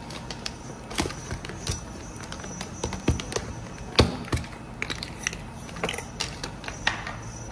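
Irregular clicks and taps of a clear plastic compartment box of rhinestones being handled, with metal tweezers picking through the stones; the sharpest knock comes about four seconds in.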